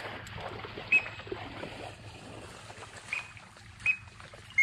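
Four short, high whistle notes, the first about a second in, over a soft steady rustle of dry flooded corn stalks.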